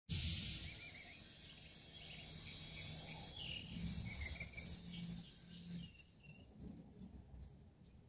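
Steady high-pitched chorus of insects, several even trilling tones together, fading out about six seconds in, with faint bird chirps behind and one sharp click just before the fade.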